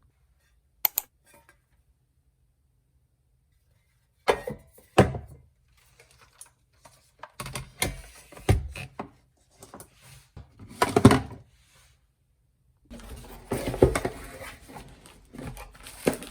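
Small objects being handled and set down on a dressing table: a quick pair of clicks, then scattered knocks and clatter, the loudest knock about eleven seconds in, and a stretch of busier rustling and clattering near the end.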